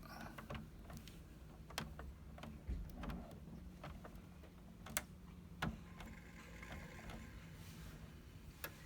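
Motorhome roof extractor fan running with a faint steady low hum, set to push air back into the vehicle, with several sharp clicks.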